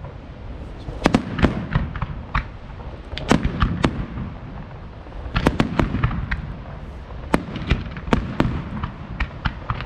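Fireworks display: aerial shells bursting in rapid, irregular clusters of sharp bangs, with a low rumble carrying on between the volleys.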